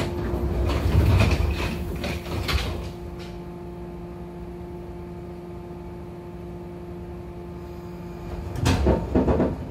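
The sliding doors of a 415 series electric train car slide shut with a clatter and knock in the first few seconds. A steady hum follows while the train stands, and near the end a burst of rumbling and clunks as the train starts to pull away.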